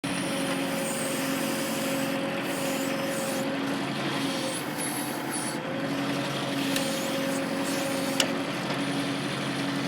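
Kubota L4400 tractor's diesel engine running steadily, with a higher tone that comes and goes several times over it. A single sharp click about eight seconds in.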